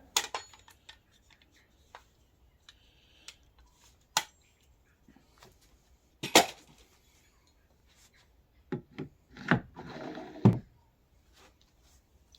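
Zip ties being cut with a box cutter and hard plastic ride-on parts handled: scattered sharp clicks and knocks, the loudest about six and ten and a half seconds in, with a short rustle around ten seconds.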